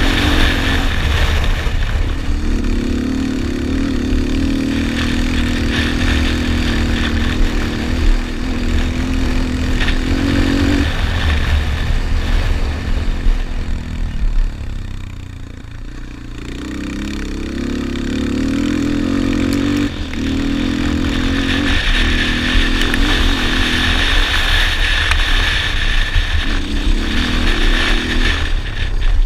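Yamaha Raptor 250 quad's four-stroke single-cylinder engine at race throttle, heard from on board. It revs up through the gears with repeated drops in pitch at the shifts. About halfway through it backs off for a few seconds, then pulls hard again.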